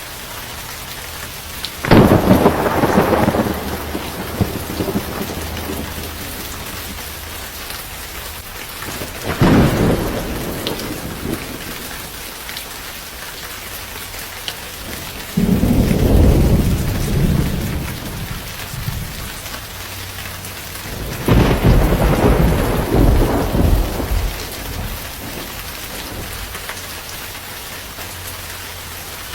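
Steady rain falling, with four loud thunderclaps that each start suddenly and rumble away over a few seconds.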